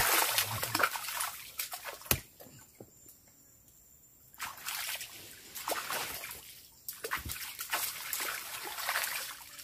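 Water splashing and sloshing as a person bathes in a lake, in two spells with a quiet gap of about two seconds between them and a single sharp knock about two seconds in.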